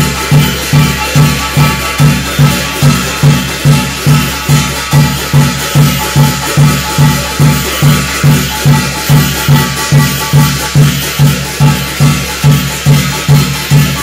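Korean shamanic ritual (gut) music: a steady drum beat, about two beats a second, with gongs ringing and bells jingling over it.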